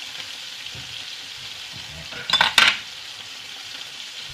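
Pieces of viper meat sizzling in hot oil in a frying pan, fried hard rather than stewed, while a fork turns them. About two seconds in there is a brief louder burst of scraping and spitting as the pieces are turned.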